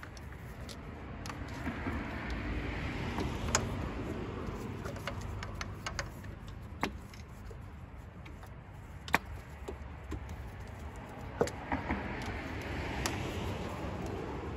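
Spark plug wires being pulled off a 2000 Mazda Miata's coil pack and spark plugs by gloved hands. Rustling and rubbing of the wires and rubber boots, with scattered sharp clicks a few seconds apart.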